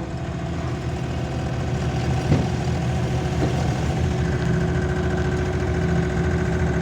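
Diesel engine of a compact construction machine running steadily, with one sharp knock about two seconds in; a higher steady tone joins about four seconds in.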